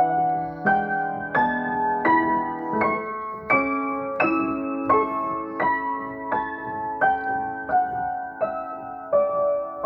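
Acoustic piano playing a slow improvisation: single notes struck at an even pace, about one every 0.7 seconds, each ringing on. The line climbs for the first four seconds or so, then steps gradually back down.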